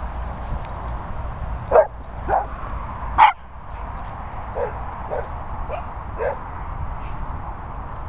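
Dogs barking: three loud, sharp barks in the first few seconds, then a run of fainter barks about every half second.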